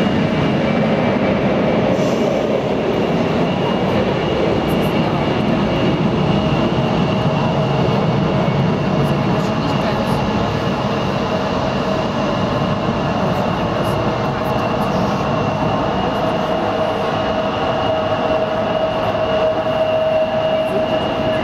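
Airbus A319 airliner's twin jet engines running loud and steady: a broad rush with a steady two-tone whine, the lower tone growing stronger near the end as the aircraft moves onto the runway for takeoff.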